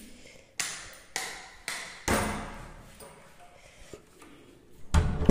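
Wall light switches clicking: three sharp clicks in quick succession, then a heavier knock about two seconds in, each ringing briefly in a bare room. A louder low thump follows near the end.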